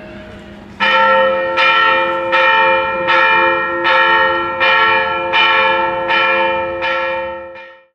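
Church bell ringing: a lingering hum, then about ten strokes roughly three-quarters of a second apart, each ringing on over the last, starting about a second in and cutting off abruptly near the end.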